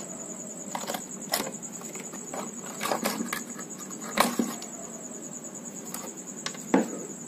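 Scattered sharp clicks and light scrapes of pliers and wire leads handled against a mixer grinder's opened metal base as a wire connection is pulled off the motor, the sharpest click a little past the middle.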